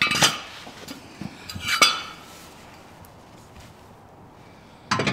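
A steel hitch receiver being handled, giving sharp metallic clanks with a brief ring: one near the start, one about two seconds in, and another at the end.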